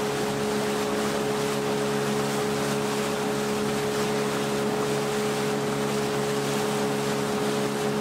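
Small boat's outboard motor running at a steady cruising speed, a constant drone, with water rushing and splashing along the hull as it moves.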